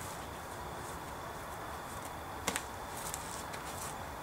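A hand slapping the side of a sneaker as the leg swings up to meet it: one sharp smack, with a quick second tap right behind it, about two and a half seconds in, over a steady outdoor background hiss.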